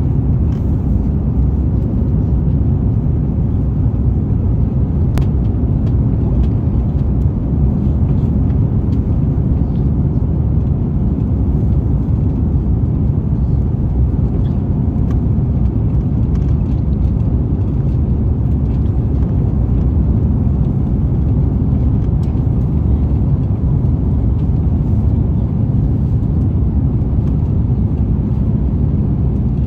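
Steady low rumble of an airliner's engines and rushing air heard from inside the passenger cabin on final approach for landing, with flaps extended.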